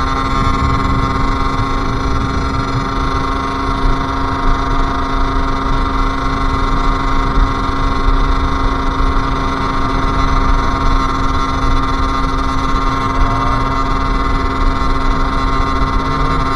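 Sherco SM-R 50's 50cc two-stroke engine running at a steady, nearly unchanging pitch while riding, with a low rumble underneath.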